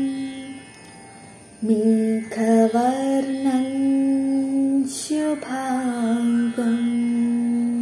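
A woman singing a slow devotional Hindu prayer solo, unaccompanied, holding long notes with small slides between them. She breaks off briefly about a second in, then sings on.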